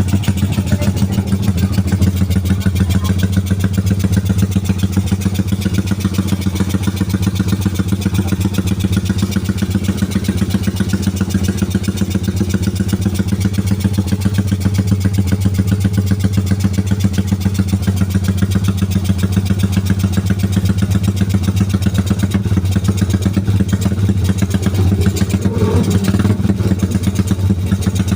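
Yamaha Jupiter MX single-cylinder four-stroke engine, bored up to 177cc with a BRT 62mm ceramic cylinder, idling steadily with a rapid, even, helicopter-like exhaust beat.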